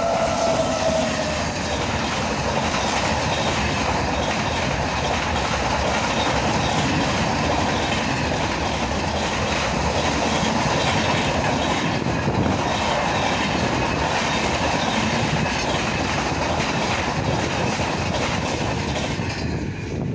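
Indian Railways WAP-7 electric locomotive and its red LHB coaches passing close at speed: a steady rush of steel wheels on rail with a clickety-clack over the rail joints. A brief falling tone fades in the first second, and the sound drops away near the end as the last coach clears.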